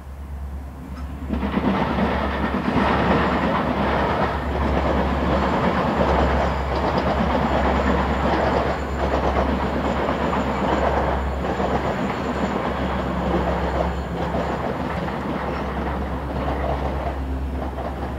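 Metra diesel commuter train of bilevel gallery cars rolling past, its wheels clattering over rail joints in a repeating clickety-clack. It starts about a second in and holds steady.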